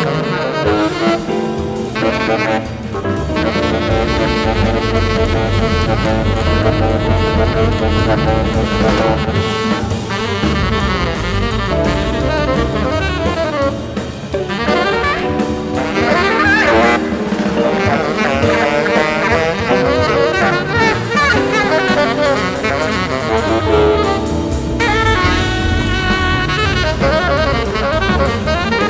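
Jazz quintet recording of saxophone, electric guitar, double bass, drum kit and vibraphone playing hard-bop/fusion, with saxophone over a steady drum-kit pulse.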